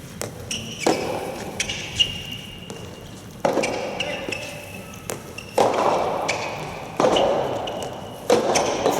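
Soft tennis being played: rackets striking the rubber ball in sharp, ringing pings, echoing in a large hall. Four sudden louder bursts of noise break in and fade over a second or so each.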